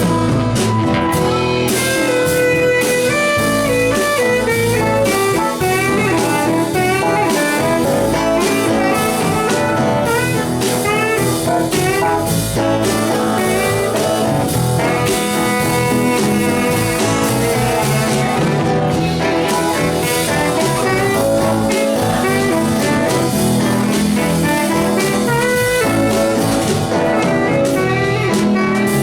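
Live band playing an instrumental stretch of a song: guitar and drum kit, with a busy melodic lead line of quick note runs over the chords.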